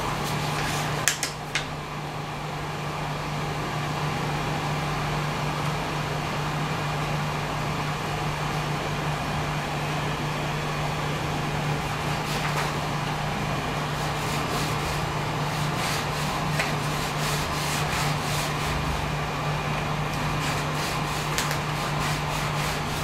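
Steady fan hum from an Ender-3 3D printer with its nozzle heated, with a sheet of paper rustling and sliding under the nozzle now and then, the paper test for the nozzle-to-bed gap during bed levelling.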